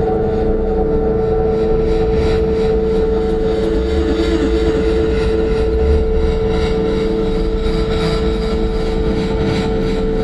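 Electronic drone of the dance performance's sound score: a loud, steady hum with one strong held tone and a low rumble, like a distant engine. About two seconds in, a faint high pulsing of a few beats a second joins it.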